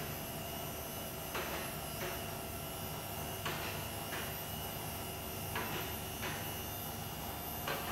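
Mobile column lifts raising a heavy truck: the lift's motor hums steadily, with a pair of sharp clicks about every two seconds as the carriages climb.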